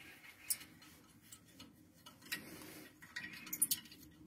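Scattered light metallic clicks and ticks, a few at a time, from bolts and fittings being unscrewed on the heating plate of a PVC window welding machine.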